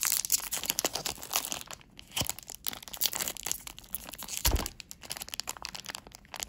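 Wrapper of a trading card pack being torn open by hand, with dense crinkling and crackling that thins out near the end. A soft low thump about four and a half seconds in.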